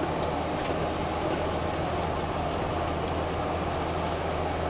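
Steady engine drone and road noise inside the cab of a moving tow truck, with a few faint scattered clicks.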